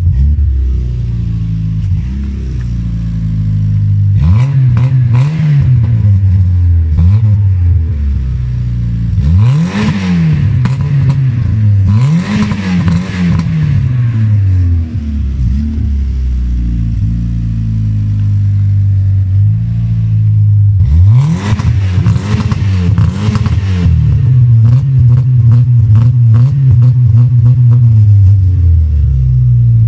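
Peugeot 306 1.6-litre four-cylinder petrol engine heard at the tailpipe, idling and revved in short blips several times, each rev rising and falling back to a steady idle. The revs come in clusters, a few quick ones early, a larger group near the middle, and another group past two-thirds of the way through.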